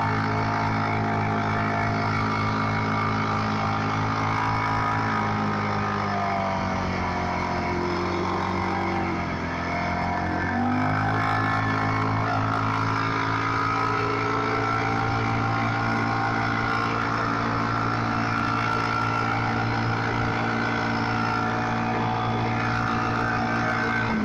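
TGB quad's engine running under way at a steady cruising speed. The pitch drops as the rider eases off, then picks back up about ten seconds in as he accelerates again and holds speed.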